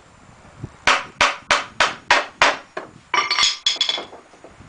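Hammer driving a nail into a pallet board: about six evenly spaced blows, roughly three a second, then a few quicker, lighter taps with a ringing tone as the nail is set.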